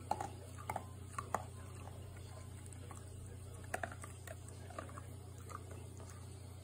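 A handful of short, irregular clicks and smacks from an American Cocker Spaniel moving its mouth and paws at floor level, clustered near the start and again about four seconds in, over a steady low hum.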